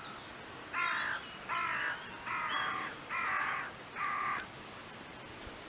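A crow-type bird (a corvid) calling five harsh caws in a steady series, each about half a second long and evenly spaced.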